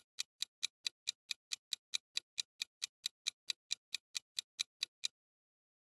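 Clock-tick sound effect for a quiz countdown timer: sharp, even ticks, about four and a half a second, stopping about five seconds in.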